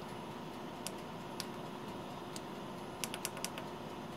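Small push-buttons on the SOK battery's front panel clicking as they are pressed to scroll the BMS display. There are single clicks about a second in and at one and a half and two and a half seconds, then a quick run of about five near the end. A steady faint electrical hum sits underneath.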